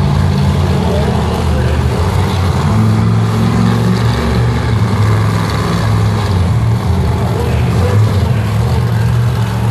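Monster truck's supercharged V8 engine running loud and revving as the truck drives and turns on the dirt floor. Its pitch rises and falls a few times.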